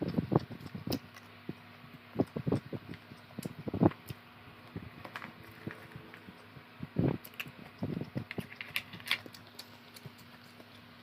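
Close-up eating sounds: irregular chewing and mouth noises with a few sharper clicks, over the steady hum of an electric fan.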